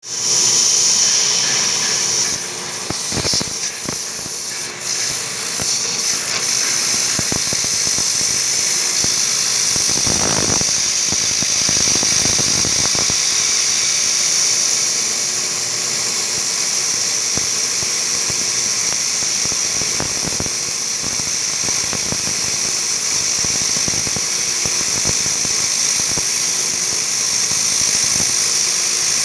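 Romi Interact CNC milling machine's spindle running with a steady high-pitched whine while the cutter takes a cut, with irregular ticking and crackling from the cutting.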